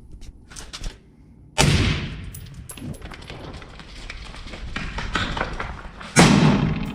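Two rifle shots about four and a half seconds apart, the first about a second and a half in and the second near the end, each followed by a long echoing tail.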